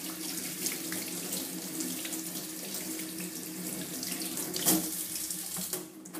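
Kitchen mixer tap running into a stainless steel sink while soapy hands are rinsed under the stream, water splashing off the hands, with one sharper, louder splash about three-quarters of the way through. The running water stops near the end.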